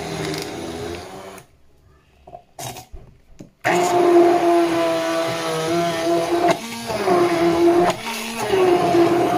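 Hand-held immersion blender puréeing bananas and milk in a plastic beaker. It runs, stops for about two seconds, then starts again louder, its motor pitch dipping briefly twice.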